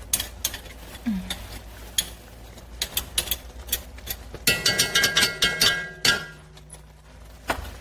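Metal spoons tapping and scraping against the rim of an enamelled cast-iron pot to knock off sticky golden syrup: scattered single clinks, then a quick run of ringing clinks about four and a half seconds in that lasts about a second and a half.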